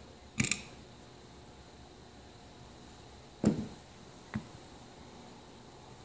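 A few brief clicks and knocks of small copper cable lugs and hand tools being handled and set down. There is a double click just under half a second in, a louder knock about three and a half seconds in, and a lighter one shortly after.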